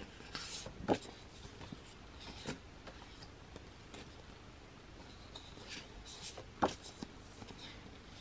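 Glossy photobook pages being handled and turned: soft paper rustling and sliding, with a few sharper page flaps, the two loudest about a second in and about six and a half seconds in.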